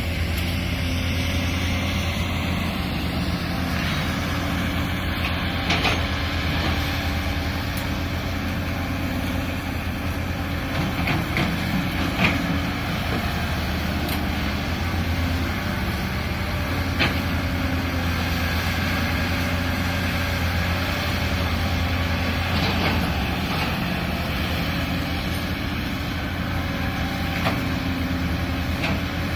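Caterpillar excavator's diesel engine running steadily under work, with a few sharp knocks now and then.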